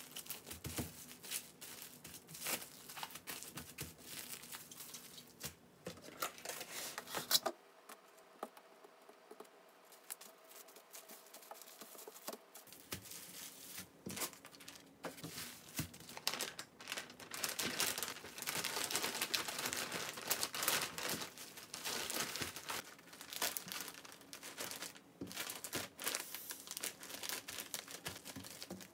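Thin plastic cling wrap and a zip-top freezer bag crinkling and rustling as hands fold the film around raw pork slices and press the bag flat. There is a few-second lull after about seven seconds in, and the crinkling is densest about two-thirds of the way through.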